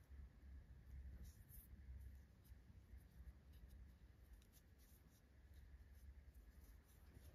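Near silence: room tone with a steady low hum and faint, scattered scratchy rustles of yarn and a crochet hook being handled.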